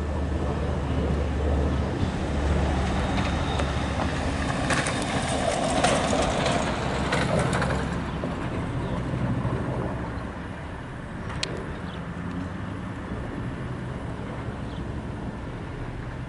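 Twin radial engines of a B-25 Mitchell bomber flying overhead, a steady low drone that grows somewhat fainter in the second half. A rushing hiss swells and dies away around the middle.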